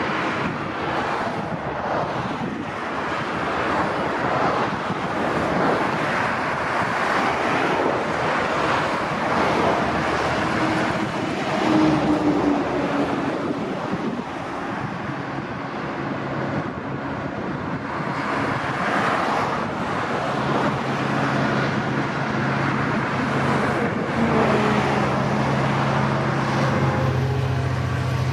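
EMD diesel freight locomotive hauling a train of refrigerated containers. Its engine's low hum grows louder and steadier over the last several seconds, under a steady rushing noise.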